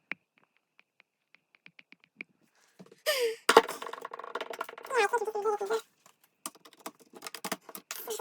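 Laptop parts being handled during reassembly: a few light plastic ticks, then a couple of seconds of squeaking and creaking, then a run of small clicks and taps.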